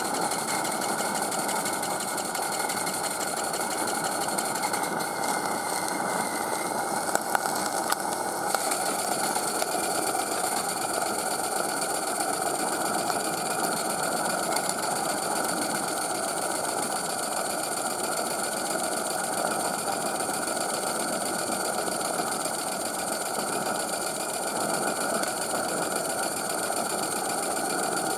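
Gas-fired Maxitrak Allchin 3/4-inch live steam model traction engine running in neutral on its first static running-in: a steady fast mechanical clatter over the roar of its gas burner. A few sharper clicks come about seven to eight seconds in.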